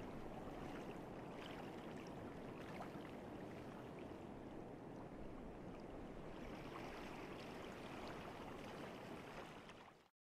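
Faint steady rushing ambient noise with a few small ticks, fading out to silence just before the end.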